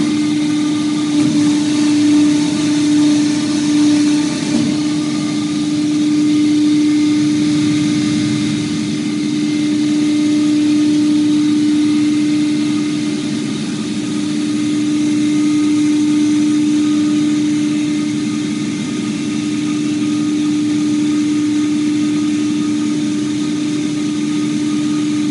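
A 1000-ton Engel ES10000/1000 hydraulic injection molding machine running, a steady machine hum with one strong constant tone and a slow rise and fall in loudness.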